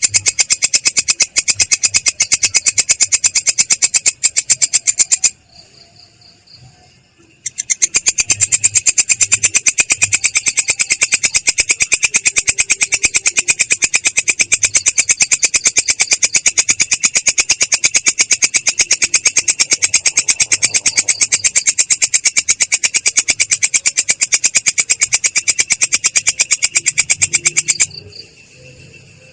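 A songbird tutor recording of a long, very fast chattering trill made of rapid pulses. It breaks off about five seconds in, resumes two seconds later, and stops near the end.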